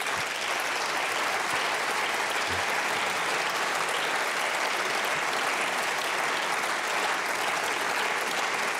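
Members of parliament applauding, a steady crowd of clapping hands that starts as the speaker pauses and keeps up evenly.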